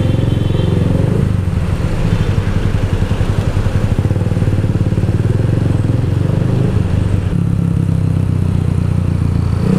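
Keeway Cafe Racer 152's single-cylinder engine running steadily under the rider at low speed in traffic, its note changing about seven seconds in.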